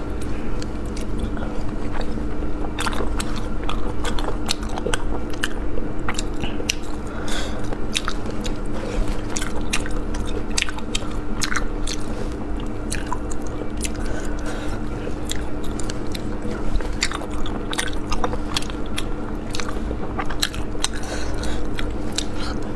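Close-miked eating: chewing, biting and wet mouth sounds as spicy snails in chili oil are picked apart by hand and eaten, with many sharp clicks all through. A steady low hum sits underneath.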